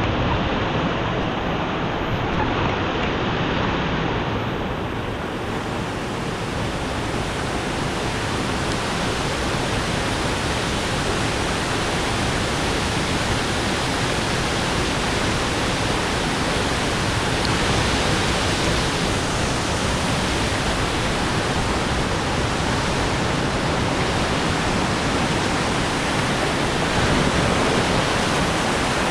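Rushing river water: a loud, steady roar of flowing water with no break or change.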